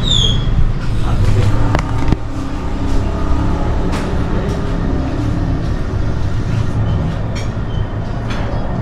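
Steady low rumble of road traffic, with a few light clicks about two and four seconds in.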